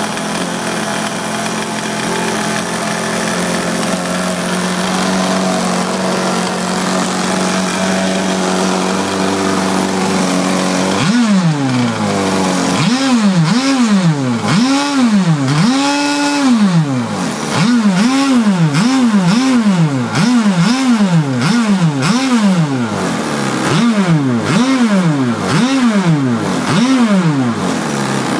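Small two-stroke engine of a Blackjack 55 RC boat fitted with a custom exhaust, idling steadily, then revved in a long series of quick throttle blips, each rising and falling in pitch, with one held a little longer.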